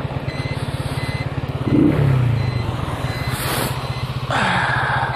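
Motorcycle engine running steadily under way, with a faint short beep repeating through it and rushes of wind noise on the helmet microphone.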